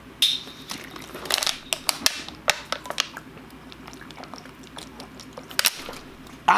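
A person drinking in gulps, with scattered clicks of the cup and sloshing of the drink, some of which spills.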